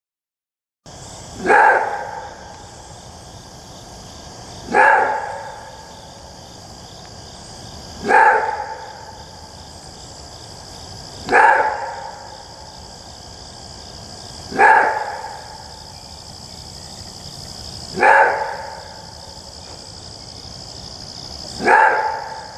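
An animal giving a single short bark-like call about every three seconds, seven times in all, over a steady high-pitched insect-like drone.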